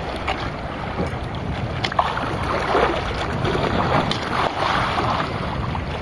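Wind buffeting the microphone and sea water washing around a small outrigger fishing boat's hull, a steady rushing noise with a few light knocks.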